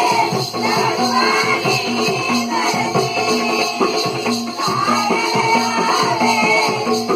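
Instrumental folk music accompanying a Balya dance, with a steady jingling, shaking rhythm over short repeating notes and a running melody.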